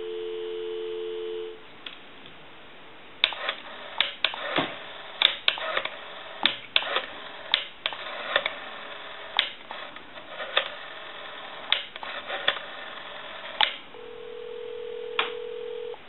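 Telephone dial tone that cuts off about a second and a half in. Then the candlestick telephone's rotary dial clicks sharply and irregularly as the number is dialled out, for about ten seconds. Near the end a steady ringback tone starts as the called line rings.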